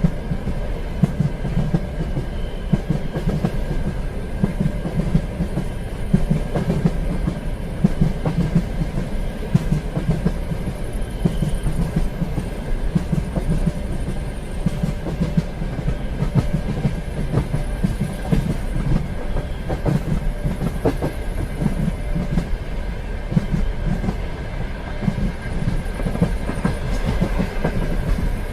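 Train running along the rails: a steady low rumble with continual clickety-clack knocks of the wheels over the track, and a thin steady whine above it.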